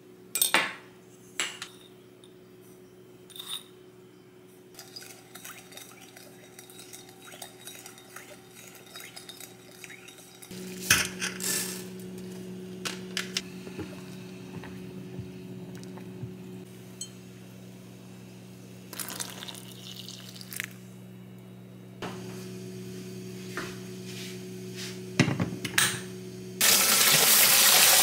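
Kitchen dishes and utensils clinking and knocking. A steady hum comes on about a third of the way in, and a water tap starts running into the sink just before the end.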